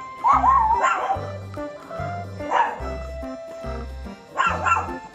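A dog barking about three times, with a short wavering whine at the start, over background music.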